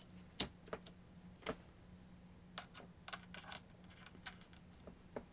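Scattered light clicks and taps of small rotary-tool parts being handled as the collet is tightened onto the flex shaft. The loudest click comes about half a second in, with a quick run of clicks near the middle.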